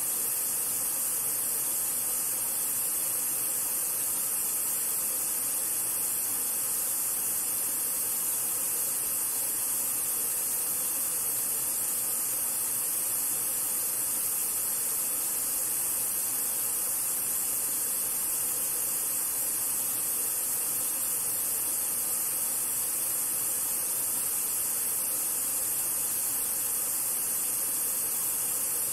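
White-noise test signal played through a Sony SRS-HG10 Bluetooth speaker in EXTRA BASS mode: a steady hiss that starts suddenly. It is strongest in the highest treble, with little bass.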